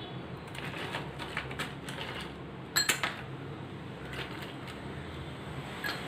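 Ice cubes clinking as metal tongs pick them from a steel bowl and drop them into a glass: a run of light clicks, with a sharper double clink about three seconds in and another near the end.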